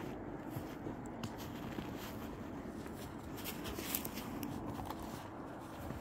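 Footsteps crunching in snow, a few irregular crisp crunches with the loudest about four seconds in, over a low steady rumble.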